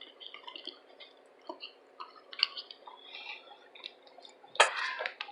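Close-miked chewing of food: soft wet mouth clicks and smacks, with one louder, fuller mouth sound lasting about half a second near the end.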